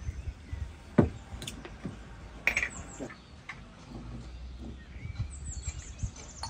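Small birds chirping, with a quick run of high, falling chirps near the end, over light knocks and clinks of eating at a wooden table; the sharpest knock comes about a second in.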